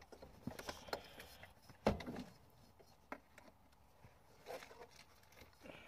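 Handling noises: scattered light clicks and taps as things are picked up and moved, with one louder knock about two seconds in.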